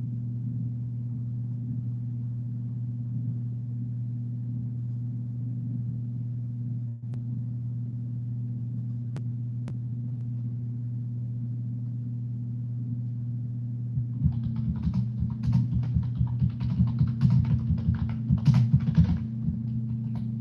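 Steady low electrical hum. About fourteen seconds in, a burst of rapid computer keyboard typing starts and lasts about five seconds.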